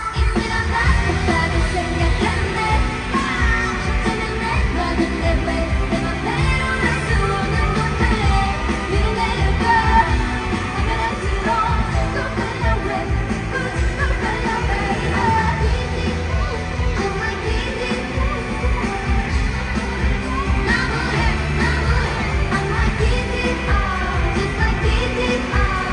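Live K-pop music played loud through a stadium sound system: a steady beat with women's voices singing.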